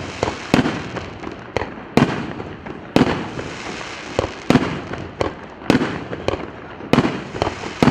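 A 1.5-inch, 36-shot consumer firework cake firing off shot after shot. It gives a sharp report roughly every half second to a second, with crackling and rumble between the bangs.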